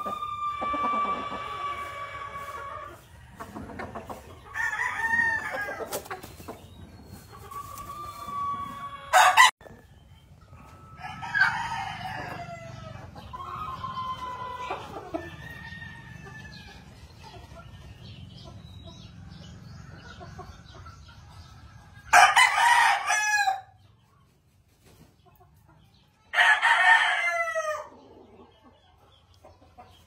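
Gamefowl roosters crowing again and again, about seven long crows, some overlapping. The two loudest crows come near the end, about four seconds apart.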